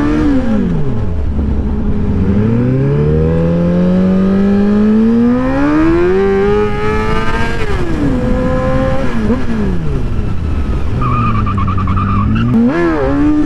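Sportbike engine accelerating hard through the gears, its revs climbing and dropping back at each upshift, then falling off as the throttle closes about eight seconds in. It runs at a steady lower pitch before revving up again near the end.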